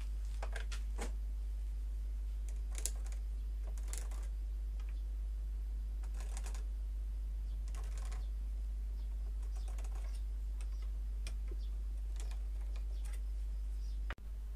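Scattered light clicks, taps and scrapes at irregular times, as an iron pipe-fitting lamp is handled and shifted on a wooden board, over a steady low hum.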